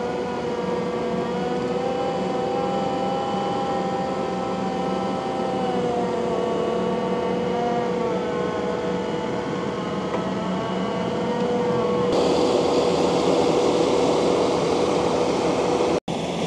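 Takeuchi TL12V2 compact track loader running under load, its engine and high-flow hydraulics driving a ground-grinding attachment through thick grass and wet clay, with a steady whine over the engine note. About twelve seconds in it turns noisier and a little louder, and it cuts out for an instant near the end.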